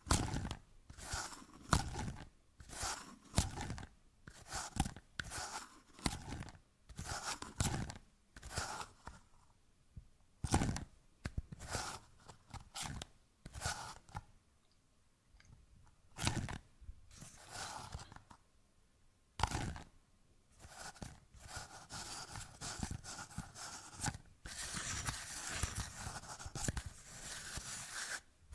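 Small nested disposable cups squeezed, twisted and tapped close to a microphone, giving irregular crinkly crunches and clicks, with two short quiet gaps and a denser, steady scratchy rubbing near the end.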